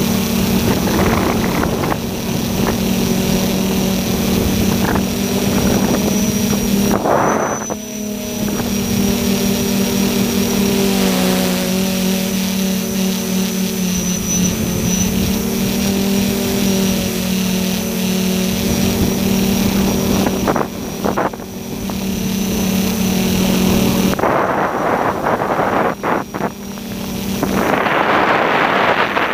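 Tricopter's three SunnySky 1400KV brushless motors and propellers whirring steadily in flight, heard from the onboard camera, the pitch shifting as the throttle changes. Rushes of wind noise come across the sound about seven seconds in and again for most of the last five seconds.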